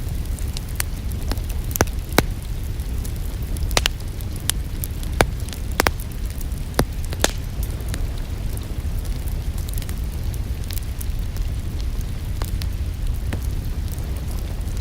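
Wood fire crackling, with sharp pops and snaps at irregular intervals, most of them in the first half, over a steady low rumble and the even hiss of rain.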